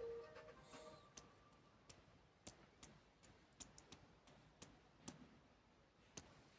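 Near silence with faint, irregular clicks. A faint steady tone stops about a second in.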